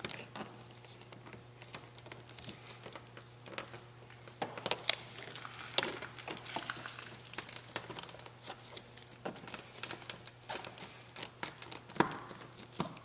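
Scattered sharp clicks and scraping of a knife blade and pliers prying a plastic trim clip out from behind an interior door handle, with rustling of gloved hands on the plastic door panel.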